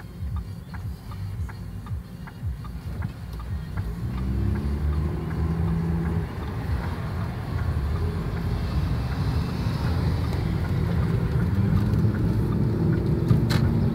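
Car cabin noise: steady engine and road rumble that grows louder about four seconds in as the car gathers speed, with a few light regular clicks at the start.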